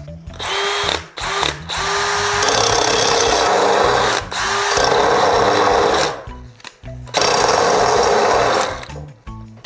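Cordless drill spinning a small cut-off disc on a grinder adapter, cutting into a steel bar with the drill running in reverse. It comes in about five bursts, the longest two to three seconds. Each starts with a rising motor whine and settles into a harsh, hissing grind.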